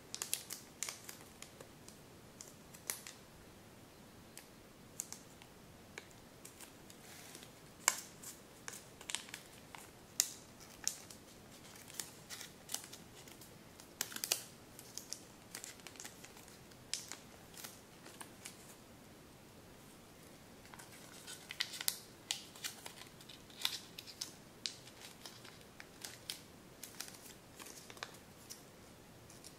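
A sheet of kami origami paper being folded and shaped by hand: irregular crinkles and short, sharp crackles as the paper is bent and creases are pressed, with a busier stretch about two-thirds of the way through.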